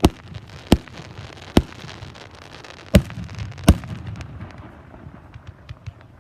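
Fireworks going off: five loud bangs over the first four seconds, followed by a quicker run of smaller crackling pops near the end.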